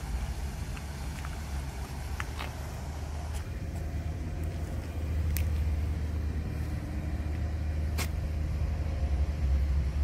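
Outdoor ambience in an open city square: a steady low rumble with a few faint clicks, no voices.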